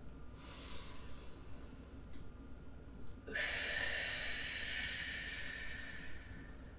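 A person breathing slowly and deeply in a calming breathing exercise. There is a softer breath about half a second in, then a long, louder exhale through the open mouth that starts suddenly about three seconds in and tapers off.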